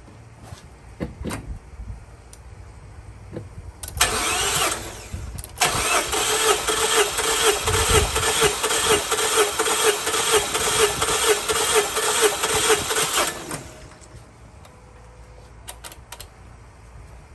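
Starter cranking the 2014 Mazda 3's 2.0L four-cylinder engine over without it firing, for a compression test on cylinder 2, the misfiring cylinder. A short burst about four seconds in, then steady cranking with an even rhythmic pulse for about eight seconds before it stops suddenly; the gauge then reads 210, a healthy reading.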